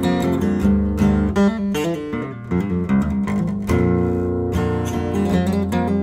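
Acoustic guitar playing an instrumental country tune: plucked chords, with a quick run of single notes about two seconds in.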